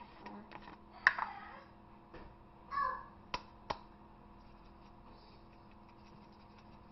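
Sharp clicks and knocks of seasoning containers being handled and set down on a kitchen counter, with one louder knock about a second in.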